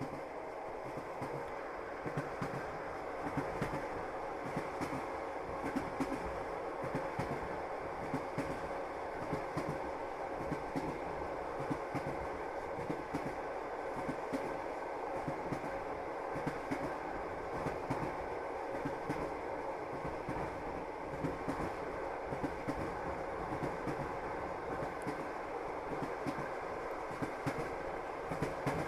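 Train wheels clacking over the rail joints as the train runs along the track, repeated knocks over a steady running noise.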